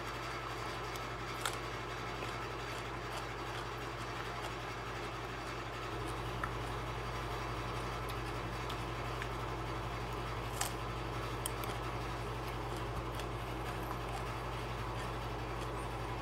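A steady low mechanical hum with hiss, which gets slightly louder about six seconds in, with a few faint sharp clicks.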